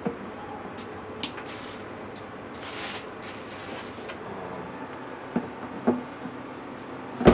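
Kitchen work sounds from waffle preparation: a series of knocks and clacks of utensils and containers being handled. The loudest knock comes at the very end, and there is a short hiss about three seconds in.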